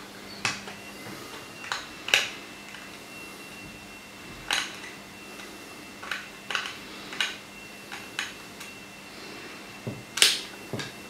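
Irregular sharp clicks and taps of a small screwdriver and fingers working on a plastic model locomotive's chassis, getting out the tiny screws that hold its speaker. Two louder knocks, about two seconds in and near the end.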